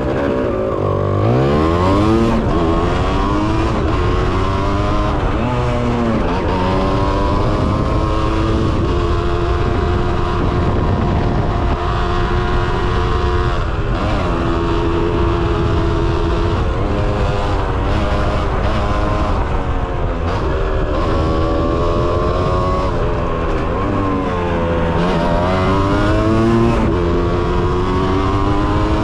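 Kawasaki KX 125 two-stroke single-cylinder dirt bike engine revving hard under riding, its pitch climbing and dropping repeatedly as the rider works the throttle and shifts, with several deep dips where the throttle is rolled off.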